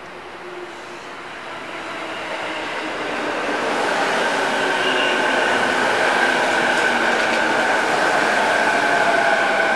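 JR electric commuter train pulling into the platform. The rumble of its wheels grows louder over the first few seconds, under a steady electric motor whine whose pitch falls slightly near the end as the train slows.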